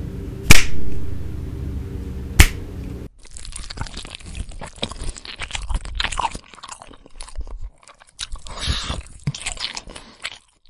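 Two sharp finger snaps over a low steady drone. About three seconds in, the drone stops and gives way to a crunchy, wet chewing and biting sound effect: irregular crunches and crackles that run until just before the end.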